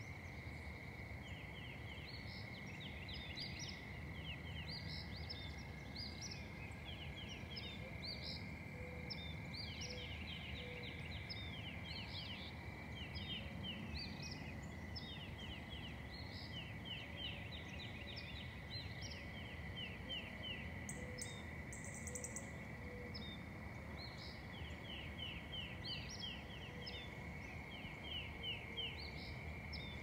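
Outdoor nature ambience: birds singing in repeated runs of quick, falling chirps, over a steady high-pitched hum and a low background rumble.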